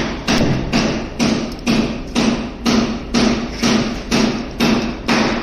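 Steady, evenly paced hammer blows, about two a second.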